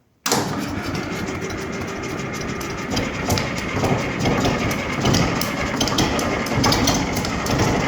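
1951 Caterpillar D4 crawler tractor's engine bursting into a loud, steady, clattery run about a quarter second in, on a cold start helped with ether.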